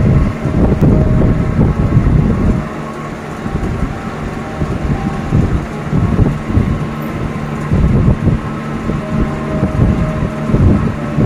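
Moving air from an electric fan buffeting the phone's microphone in an irregular low rumble, over a steady motor hum.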